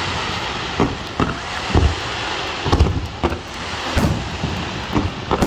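Fireworks display: aerial shells bursting in a string of irregular deep booms, roughly one to two a second, several followed by a rolling echo, over a steady hiss.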